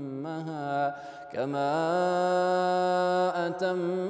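A man's voice reciting the Quran in melodic tajweed style. About a second in he takes a brief breath, then glides up into a long, steady held note.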